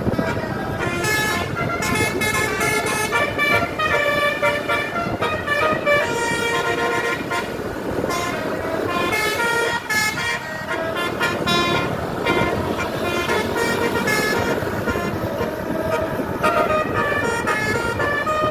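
Tour bus 'telolet' musical air horns playing quick stepped-note tunes, several horns sounding together and overlapping, over the steady rumble of traffic.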